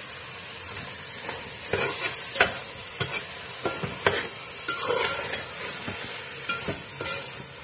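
Grated carrots frying in oil with freshly added sugar, sizzling in a large aluminium pot, while a metal spoon stirs and scrapes, knocking against the pot at irregular moments from about a second and a half in.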